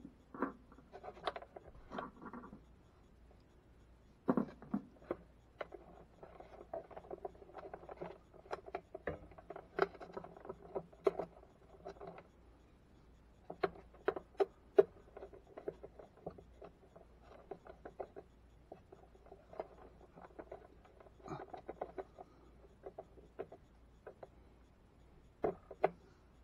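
A screwdriver working a terminal screw on a ground bus bar inside a plastic electrical enclosure: repeated small clicks and scraping of metal on metal, with the rustle of wires being handled.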